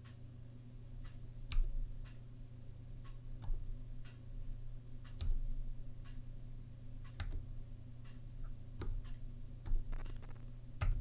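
Typing on a Zilpzalp ergonomic mechanical keyboard with Kailh Twilight low-profile switches: a quick, irregular patter of key clicks, with a louder key strike every second or two, over a low steady hum.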